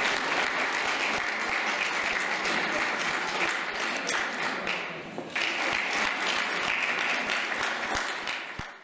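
Audience applauding steadily; the clapping dips briefly about five seconds in, then picks up again and fades out at the end.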